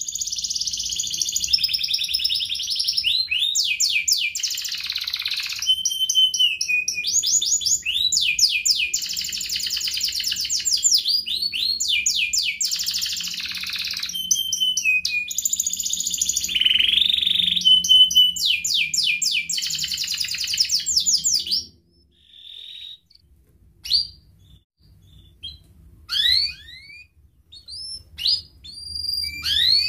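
Domestic canary singing a long unbroken song of fast rolling trills and rapid repeated notes. After about twenty seconds it stops abruptly, and only short scattered chirps follow near the end.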